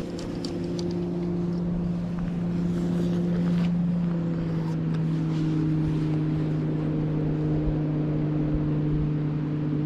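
Motorboat engine running steadily, a droning hum that slowly falls in pitch.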